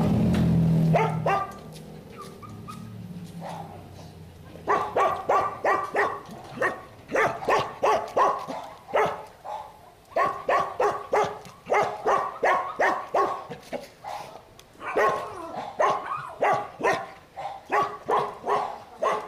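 Dog barking in short, repeated barks, two to three a second, starting about five seconds in and keeping on with only brief pauses. A few high whines come before, and a loud low rumble at the very start.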